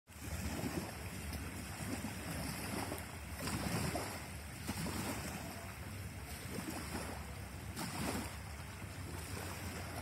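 Wind buffeting the microphone in uneven low gusts over the steady wash of small river waves lapping at a sandy shore.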